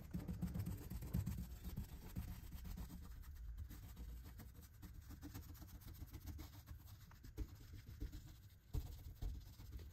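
Faint, irregular dabbing and rubbing of a paint sponge and brush against a painted wooden furniture panel, many quick light taps as paint is stippled on for texture.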